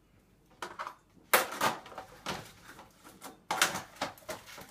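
Plastic meat tray and wrapping being handled on a kitchen counter: a run of short crackles and knocks, the loudest about a second in.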